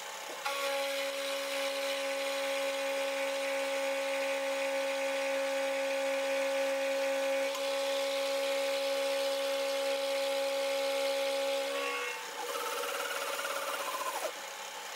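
Milling machine cutting along the edge of a clamped metal plate: a steady whine with a hiss of cutting starts about half a second in. Near the end the steady whine gives way to a falling whine that stops shortly before the end.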